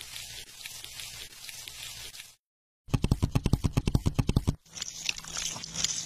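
Sound effects for a stop-motion clip: a crackling hiss, a short gap, then a rapid run of loud crunching clicks about ten a second starting about three seconds in, followed by more crackling hiss.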